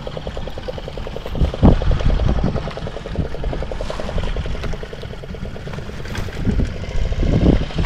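Fishing boat's engine running steadily, a constant rumble with an even, fast beat. Wind buffets the microphone in low gusts about a second and a half in and again near the end.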